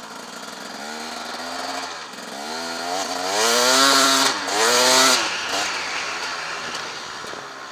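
Husaberg TE 300's two-stroke single-cylinder engine revving hard as the bike accelerates away. It climbs in pitch and falls back at each gear change, three times, loudest in the middle, then eases off near the end.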